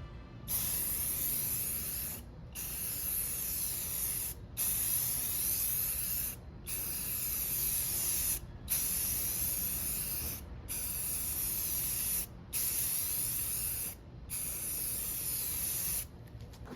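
Spray paint hissing out of a nozzle in eight bursts of about two seconds each, with short pauses between them.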